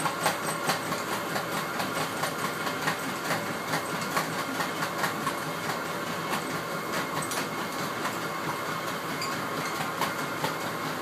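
A treadmill running with a steady motor whine and belt noise, and a dog's footfalls landing on the moving belt in a steady trotting rhythm.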